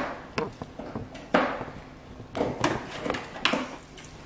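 Scattered light knocks and crinkly scrapes of kitchen items being handled, among them a thin aluminium foil pan, coming at irregular intervals.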